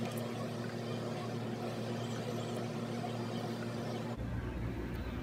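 Low steady electrical hum over faint room noise, with no distinct clicks or taps; its low end changes abruptly about four seconds in.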